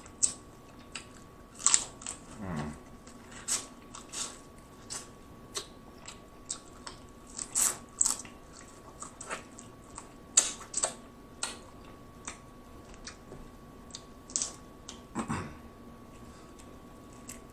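Close-miked mouth sounds of eating snow crab meat: wet smacks and chewing clicks at irregular intervals, about one or two a second.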